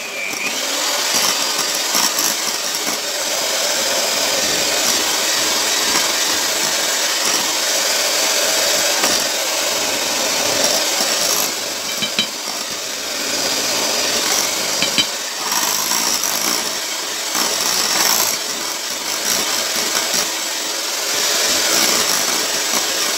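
Electric hand mixer running, its beaters whirring through thick cake batter as mashed squash is beaten in.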